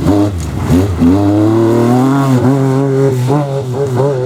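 MG Metro 6R4 Group B rally car's 3.0-litre V6 engine revving hard. Its pitch drops sharply near the start, then climbs again with a few short dips.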